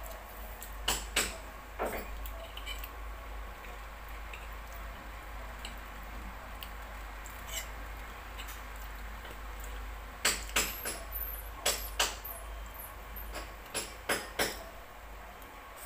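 Metal fork clinking and tapping against a ceramic plate as food is cut and picked up. The taps come in small clusters, a few near the start and a run of them from about ten seconds in, over a steady low hum.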